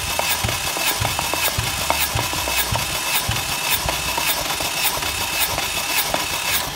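Chery SQRE4G16 1.6-litre 16-valve four-cylinder engine cranked on its starter for a compression test of cylinder one, a steady churning with a regular pulse from the compression strokes. It stops near the end.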